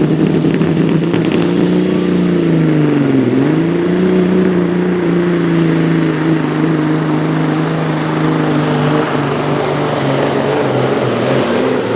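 International 9900-series semi truck's diesel engine running hard under load while pulling the sled. A high turbo whine rises over the first few seconds and then holds. The engine note dips briefly about three seconds in, then recovers and stays steady.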